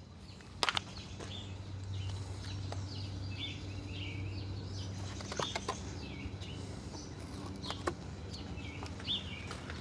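Small birds chirping over a low steady hum, with a few sharp clicks and taps from a plastic chemical jug being handled.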